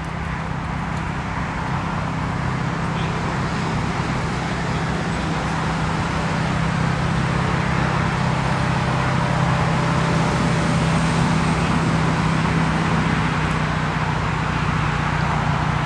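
Steady drone of a vehicle under way: a low engine hum under an even rush of road or wind noise, slowly growing louder.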